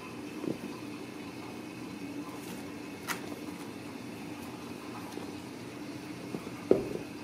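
Kittens at play on a tile floor: a few soft taps and knocks over a steady low hum, with one sharp thump near the end, the loudest sound.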